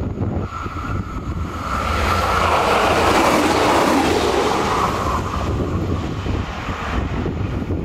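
Single-car diesel railcar passing close by. Its sound swells to a peak about three seconds in, then fades as it goes away, over steady wind noise on the microphone from a strong mistral.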